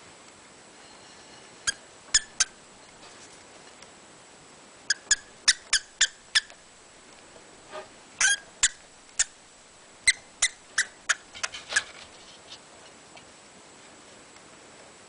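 A small pet squeaking in short, sharp, high squeaks, about twenty in all, in quick runs of three to six, as it begs to be picked up.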